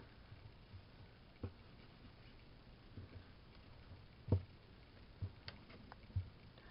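Faint scattered taps and soft handling noises from hands and a paintbrush on a craft sheet as wet painted seam binding ribbon is pulled out and laid down. The loudest is a single tap a little past halfway.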